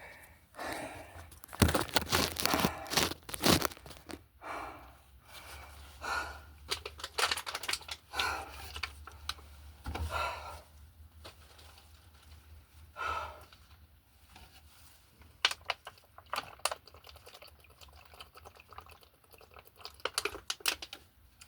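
Irregular crinkling and crunching rustles, densest in the first few seconds and sparser after, from someone shifting about and handling things in an attic.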